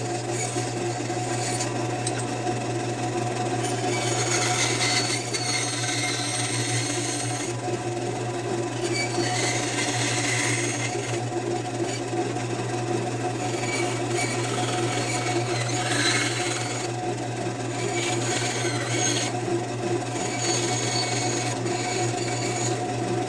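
Woodworking power tool running steadily with a constant hum, a rasping sound of wood being worked rising and falling over it.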